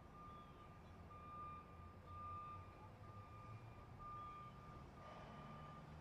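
A truck's warning beeper sounding a single high tone about once a second, over the low rumble of the truck's engine.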